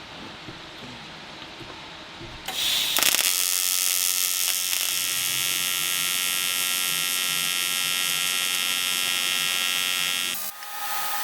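AC TIG welding arc from an Everlast 210EXT on aluminium, at 100 Hz AC frequency. It strikes sharply about two and a half seconds in, buzzes steadily and loudly for about eight seconds, then cuts off. The arc sounds steadier and more controlled than at lower frequency settings. A quieter steady hum follows once the arc stops.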